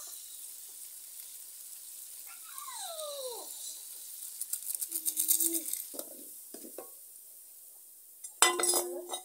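Sauce frying in a small metal pan over a wood fire: a steady sizzle that crackles more busily about five seconds in, with a spoon stirring and scraping the pan. A sharp metal clank with a short ring about eight seconds in is the loudest sound.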